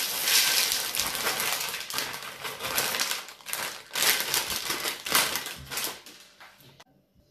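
Dried black-eyed beans being poured out, a dense rattling patter of hard beans that thins to scattered clicks and stops about seven seconds in.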